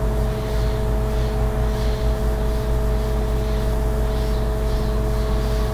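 Steady background hum: a low rumble with two constant tones and a hiss over it, unchanging throughout.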